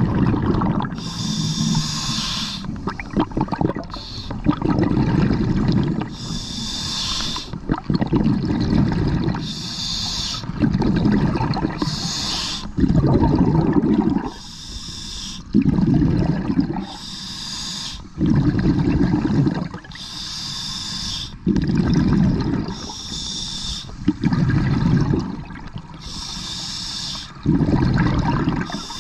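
Scuba regulator breathing heard underwater: a short hiss as each breath is drawn through the demand valve, then a longer low rumble of exhaled bubbles, repeating steadily about every two and a half to three seconds.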